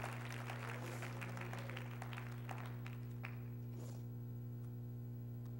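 Congregation applauding, the clapping thinning out and dying away about three to four seconds in, leaving a steady low hum.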